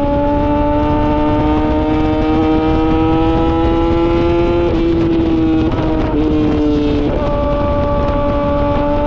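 Yamaha R6 inline-four motorcycle engine with an SC Project titanium exhaust, running under load at high revs, its pitch climbing slowly and then stepping through a few gear changes past the middle. A low rushing noise lies under the engine note.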